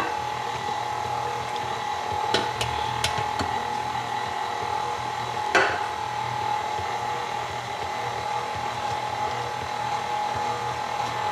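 KitchenAid Classic stand mixer running steadily, its flat beater working a thick cookie dough as flour is added: a constant motor whine over a low hum, with a few sharp clicks about two and a half seconds in and again near six seconds.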